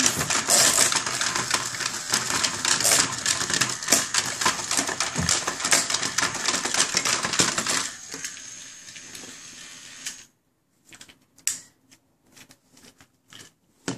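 Battery-powered Chubby Puppies toy dog waddling, its small motor and gears making a rapid clicking rattle on the plastic playset. The rattle turns quieter about eight seconds in and cuts off abruptly about two seconds later, followed by a few faint taps.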